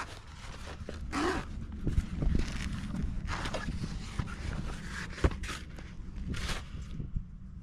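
Handling noise from a folding portable solar panel being opened out of its fabric carry case: several short rustling scuffs and a sharp click about five seconds in, over a steady low rumble.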